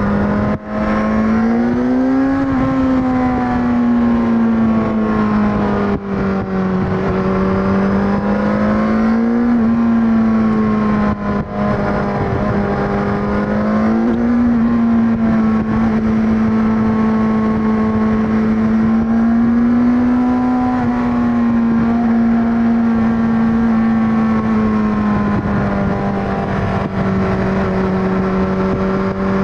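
2021 Kawasaki Ninja 1000SX's inline-four engine and exhaust running at a steady cruise, the pitch rising and falling gently a few times with the throttle. Wind noise on the microphone runs underneath.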